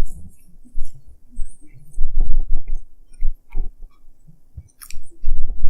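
Close-miked chewing of a Philly cheesesteak sandwich: irregular low thumps with small clicks.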